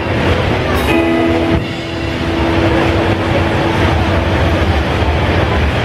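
Rock band playing live and loud through a distorted, overloaded recording: electric guitars, bass and drums with cymbal wash, a guitar note held for a couple of seconds about a second in.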